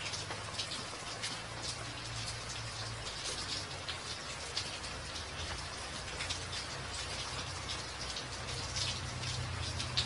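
Steady rain falling on a wet, puddled walkway: an even hiss dotted with many separate drop ticks, over a faint, steady low rumble.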